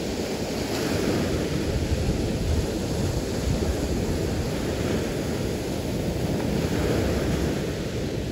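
Small surf waves breaking and washing up onto a sandy beach in a steady wash of noise, with wind rumbling on the microphone.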